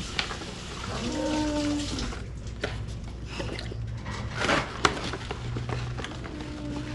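Kitchen clatter: water at the sink and dishes clinking, with scattered clicks. A short low whine sounds about a second in and again near the end.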